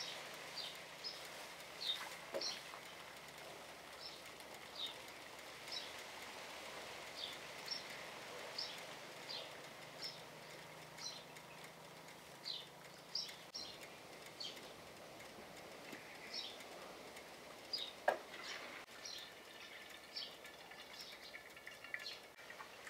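A bird calling with short, sharp, falling chirps, repeated irregularly about once or twice a second. A couple of knocks are heard, the louder one late on.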